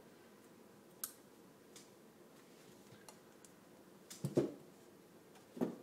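Workbench handling noises: a sharp click about a second in, then a few dull knocks and rustles near the end as tools are picked up off the cloth-covered bench.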